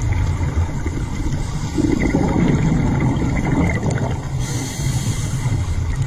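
Underwater ambient noise picked up by a diver's camera: a steady low rumble, with a louder rushing passage from about two to four seconds in.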